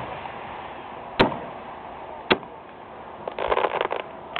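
Aerial fireworks going off: two sharp bangs about a second apart, then a rapid crackling of many small pops near the end.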